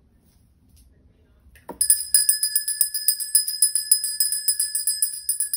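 Small metal hand bell shaken rapidly, its clapper striking many times a second over a steady high ring. It starts with a click about two seconds in.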